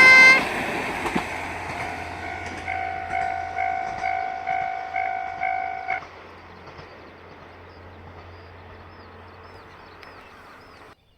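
A train's horn cuts off right at the start as the train runs past the level crossing and its noise fades away. The crossing's 'kan-kan' warning bell rings about twice a second and stops about six seconds in, leaving a faint low hum until the sound cuts off near the end.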